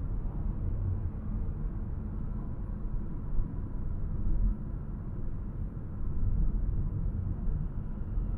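Car driving on a city road: a steady low rumble of tyre and engine noise, with no other distinct event.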